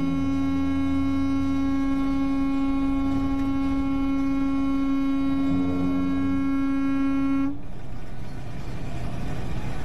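A truck horn held down in one long, steady blast at a single pitch. It cuts off abruptly about seven and a half seconds in, leaving the rumble of the truck driving at highway speed.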